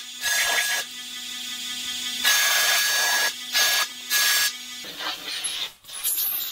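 Handheld pneumatic tool on an air hose running against the underbody of a Land Rover Discovery 3, undoing bolts: a steady whine with four loud bursts of air hiss over about five seconds.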